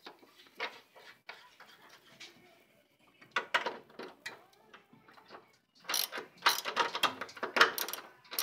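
Hand ratchet clicking as it backs out the 9/16-inch top hat bolts of a Miata's front strut mount, which are coming out easily. A few scattered clicks come first, then a short run about three and a half seconds in, then fast, steady ratcheting from about six seconds in.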